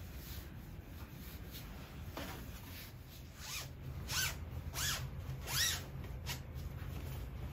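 Zipper of a comforter cover being pulled open in several quick strokes, about four short rising-and-falling zips in quick succession, with fabric rustling.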